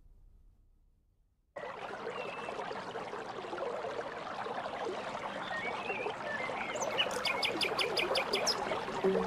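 Near silence, then about a second and a half in, running water starts trickling and splashing steadily, slowly getting louder. A few faint chirps come through it, and near the end there is a short run of rapid ticks, about five a second.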